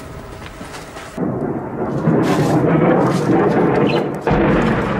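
Heavy airstrike rumble: a loud, rough roar that starts suddenly about a second in, drops out briefly near the end, then comes back.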